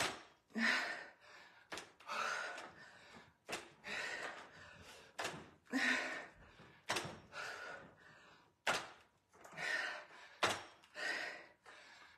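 Adjustable dumbbells knocking down on the floor at the bottom of each sumo deadlift high pull. The thunk comes about every second and three quarters, with hard, breathy exhales of effort between the reps.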